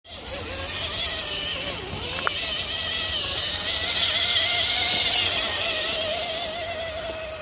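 Electric motor and drivetrain of a radio-controlled crawler truck whining steadily, the pitch wobbling and dipping about two seconds in before climbing again as the throttle changes, with a single sharp click near that point.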